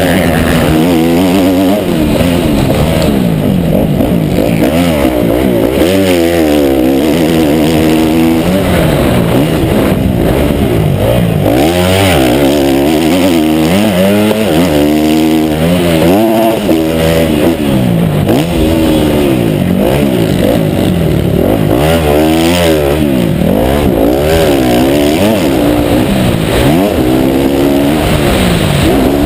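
Motocross bike engine running loud, heard from a helmet-mounted camera. Its pitch climbs and drops over and over as the rider accelerates, shifts and backs off around the track.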